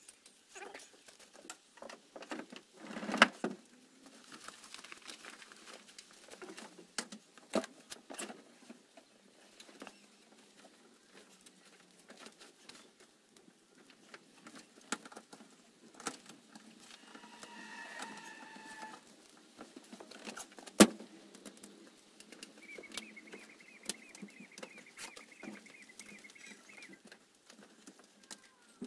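Folding metal soft-top frame and vinyl cover of a Midas roadster being fitted by hand: scattered clicks, knocks and rustles as the bows are raised and the cover is pulled over and fastened. Two sharp knocks stand out, one about three seconds in and another about two thirds of the way through.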